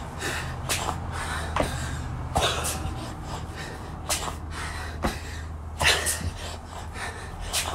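A person breathing hard through a burpee workout, with forceful puffing exhales every second or two and sharp thuds of hands and feet landing on an exercise mat. A steady low hum runs underneath.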